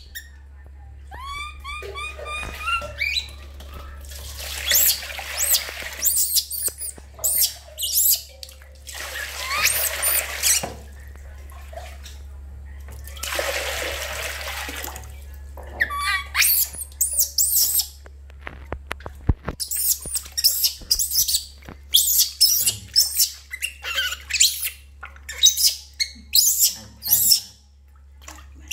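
Baby macaque crying in many short, shrill, high-pitched screeches, thickest in the second half. Three times in between, water is poured and splashed in a metal basin as it is bathed.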